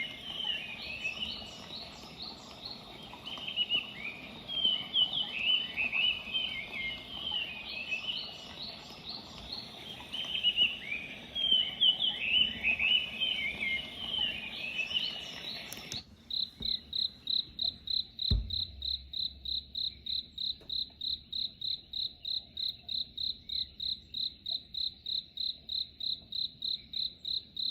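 Zealot Z6 white noise machine's speaker playing a recorded birdsong track of quick twittering chirps, which cuts off suddenly about 16 seconds in. A cricket track follows: a steady high chirping at about four pulses a second. A single low thump comes a couple of seconds after the change.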